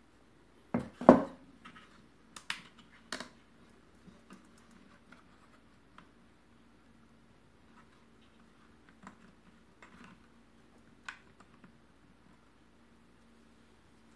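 Wooden knocks and clicks of a melodeon's bass-end box being handled and set down on a wooden table, the loudest about a second in, then a few more knocks and scattered light taps.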